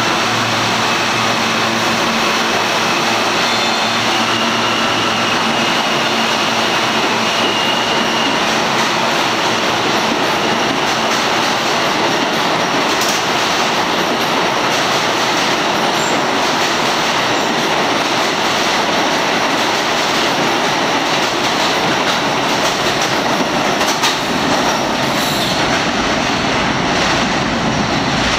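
New York City Subway R160 train pulling out of an underground station, with a brief high whine from its motors in the first several seconds as it gets moving. Then a loud, steady noise of the cars running over the rails, continuing until the last car has gone.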